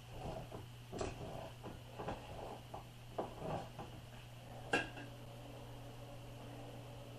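Irregular metal clanks and clinks from a hand-cranked meat grinder being worked, the sharpest knock near the five-second mark, over a steady low hum.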